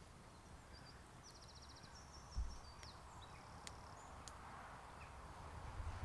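Quiet woodland fire: a wood fire burning in a small folding steel stove, with a few sharp crackles. A small bird trills and chirps in the first half, there is one low thump a little over two seconds in, and a soft hiss swells toward the end.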